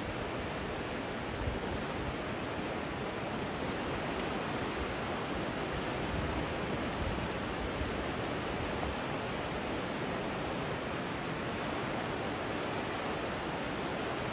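The Indus River swollen with floodwater, rushing past in a steady, even wash of noise.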